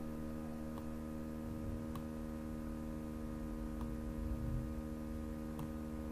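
Steady low electrical hum, with a few faint, sharp computer mouse clicks spread a second or two apart.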